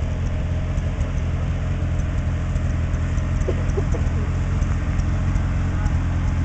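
Rock buggy engine running steadily at low revs, a constant low drone as the buggy sits or creeps at the base of the hill. A few short faint squeaks come about three and a half seconds in.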